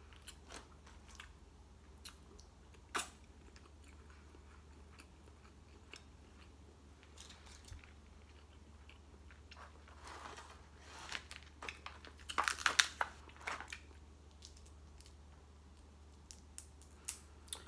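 Snow crab being eaten: chewing and lip-smacking with scattered shell clicks, and a run of louder crunching and cracking of the crab shell about ten to thirteen seconds in.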